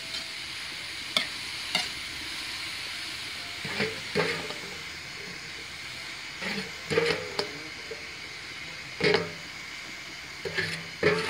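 Mushrooms and pork sizzling in a metal wok, with a steady frying hiss. A metal spatula scrapes and knocks against the pan about ten times as the food is stirred.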